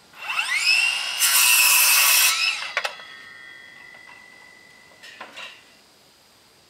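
Handheld circular saw spinning up with a rising whine, then cutting through a wooden plank for about a second. The blade then winds down and coasts with a fading tone, with a sharp knock as the cut ends and a couple of wooden knocks a few seconds in.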